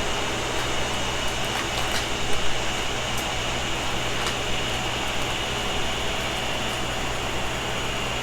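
Steady fan-like whirring hum with a low drone, with a few faint light clicks.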